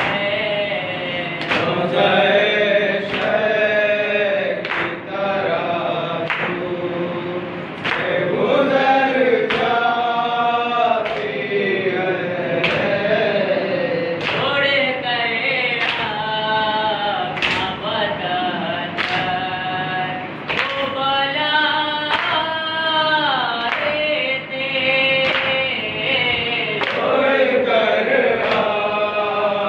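A nauha, a Shia mourning lament, chanted by a male reciter with a group of men joining in, over rhythmic chest-beating (matam), a thump about every second and a half.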